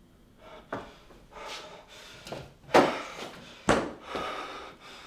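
A string of sudden thumps and knocks, the two loudest about three and four seconds in, with scuffling noise between them.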